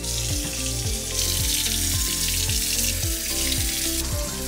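Kitchen faucet running into a stainless steel bowl as hands rinse its contents, the water hiss growing louder about a second in and dropping back near the end. Background music with a steady beat plays throughout.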